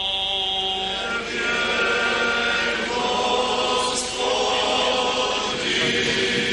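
Church choir singing Orthodox liturgical chant in long held notes that change pitch every second or so, answering the clergyman's litany.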